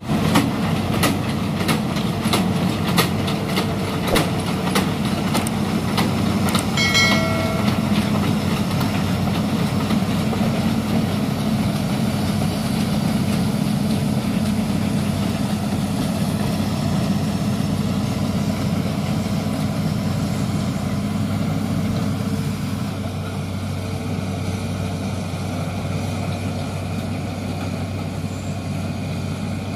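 Diesel engine of a Hitachi Zaxis 210F amphibious excavator running steadily as the machine travels on its pontoon tracks, with sharp knocks about once a second in the first several seconds. It grows somewhat fainter as the machine moves away.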